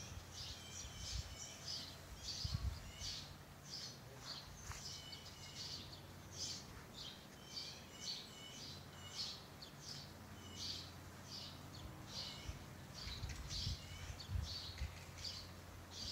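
Small birds chirping over and over in short, quick, high calls, with a few dull low thumps about two seconds in and again near the end.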